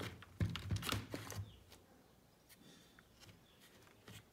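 Handling noise from a tire inflator being taken apart: a cluster of plastic clicks and knocks in the first second and a half as the motor-and-pump assembly is lifted out of its plastic case, then only a few faint ticks.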